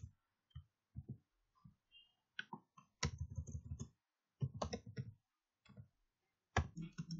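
Typing on a computer keyboard: a few scattered keystrokes, then short quick runs of keystrokes with pauses between them.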